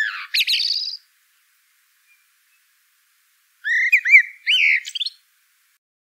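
A songbird singing two short phrases of quick whistled notes and trills, the first at the start and the second about three and a half seconds in, with silence between them.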